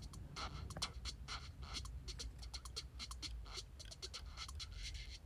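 Faint, irregular small clicks and scratches of metal tweezers working thin wire into holes in a painted 3D-printed plastic model engine.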